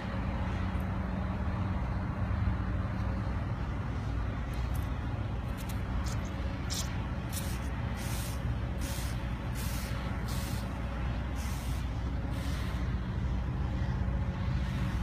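Misting umbrella fed from a water bottle, spraying in short hissing spurts about once a second, starting a few seconds in, over a steady low rumble of traffic.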